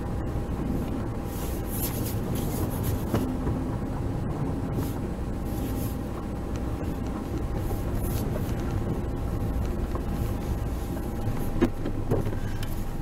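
Steady low rumble of a car being driven, heard from inside the cabin, with a few small knocks near the end.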